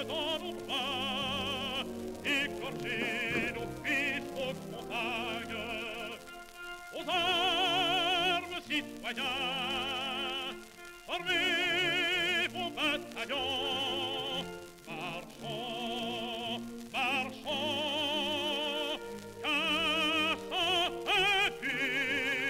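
Background music: an operatic voice singing long held notes with a wide vibrato, broken by short pauses.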